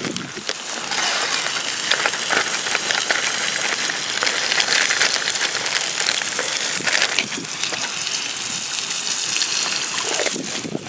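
Food sizzling over a wood campfire, with dense crackling throughout.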